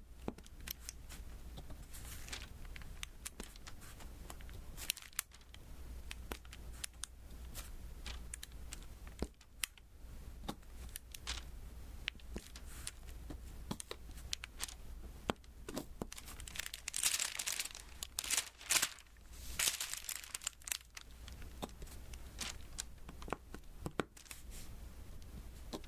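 Diamond painting: small resin beads being tapped down one at a time onto the sticky adhesive canvas, a run of many small sharp clicks. There are a few louder crackling, sticky bursts about two-thirds of the way in.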